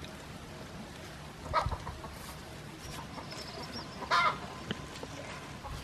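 Chicken clucking: two short calls, about one and a half seconds and four seconds in.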